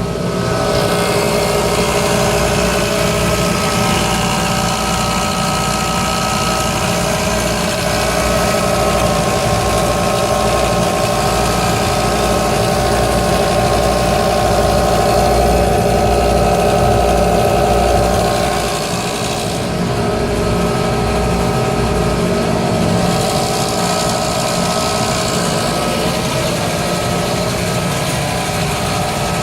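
Workshop air compressor running steadily under load, its motor and pump humming as the tank builds pressure, with a brief dip in loudness about eighteen seconds in.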